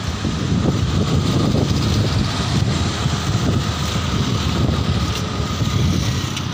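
Motorbike and scooter traffic passing on the road, with wind buffeting the microphone in a steady low rumble.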